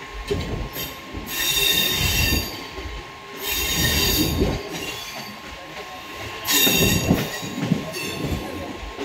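A train running on the rails, heard from on board: a steady rumble of wheels on track, with high-pitched wheel squeal in three spells of about a second each.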